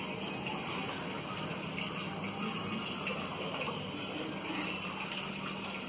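White flour-like powder poured from a packet onto raw fish in a steel bowl: a soft, steady pouring hiss, with a steady low hum under it.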